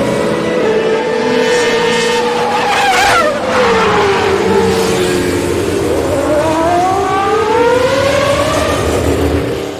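Formula 1 race cars running at speed. About three seconds in, one passes close with a sharp drop in engine pitch. Over the last few seconds the engine note rises steadily as a car accelerates.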